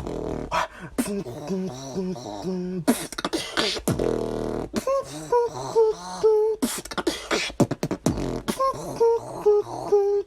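Solo human beatboxing: mouth-made kick, snare and click sounds under a hummed melody of short notes that step up and down. The effect is made by combining humming with short, closed-mouth duck sounds.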